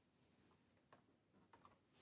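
Near silence: room tone with a few faint light clicks, one about a second in and two close together near the end, from small diecast model-kit parts being handled.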